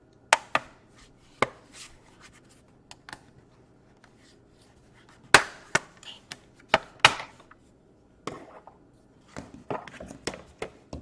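Irregular sharp clicks and taps of a laptop's plastic case parts, screws and tools being handled during disassembly, with a busier cluster around the middle.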